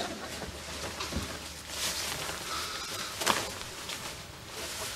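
A leather jacket handled and shifted about: faint rustling with a few soft thuds, and one sharp crackle about three seconds in.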